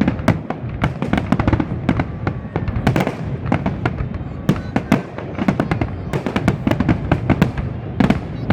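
Fireworks display: a dense, irregular barrage of sharp bangs and crackles over a continuous rumble of detonations.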